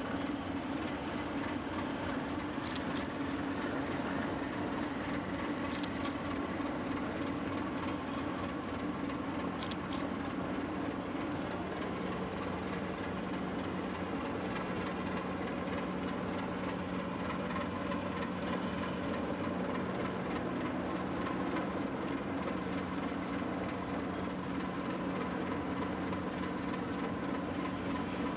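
Steady drone of ship engines and machinery running during berthing, with a constant low hum and a few held tones. A few faint, brief clicks in the first ten seconds.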